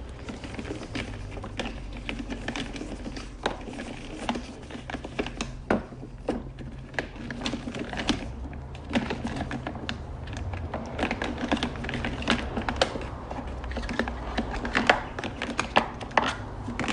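Plastic hose reel on a Gerni Classic 125.5 Titan pressure washer being cranked to unwind the high-pressure hose: irregular clicks and rattles, several a second, over a low steady rumble.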